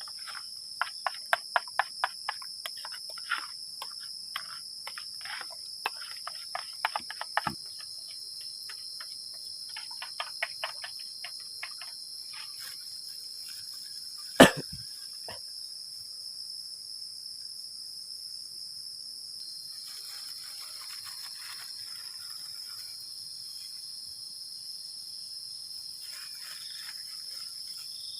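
Insects in forest undergrowth keep up a steady, high-pitched chirring. Over it come a quick series of sharp clicks and knocks for the first dozen seconds, then one loud knock about 14 seconds in, and a faint rustling near the end.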